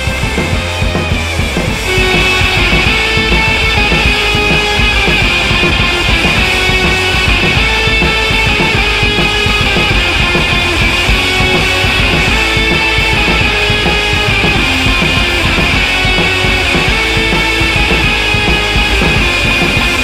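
Background music with drums and a steady beat, stepping up in loudness about two seconds in.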